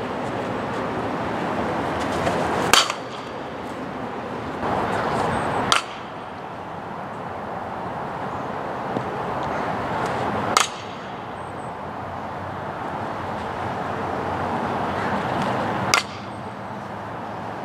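Softball bat hitting pitched balls four times, several seconds apart: each a sharp crack with a brief ringing ping. Steady outdoor background noise between the hits.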